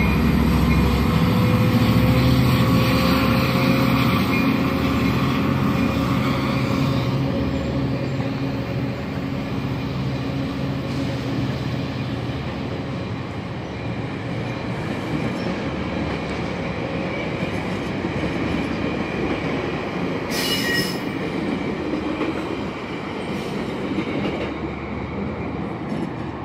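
Sounder bilevel commuter train passing: a diesel locomotive hums through the first several seconds, then the coach wheels rumble on the rails and slowly fade. A brief high squeal comes about three-quarters of the way through.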